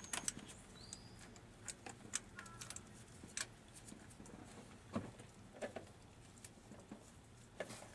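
Scattered light clicks and taps of small metal parts being handled, spark plugs and a gap tool, with a few short, faint bird chirps.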